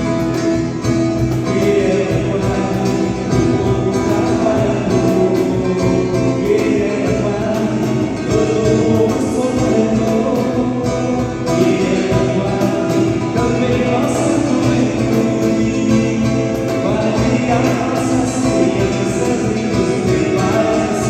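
A group of voices singing a Portuguese-language Catholic hymn to Saint Anne, with instrumental accompaniment, playing on steadily.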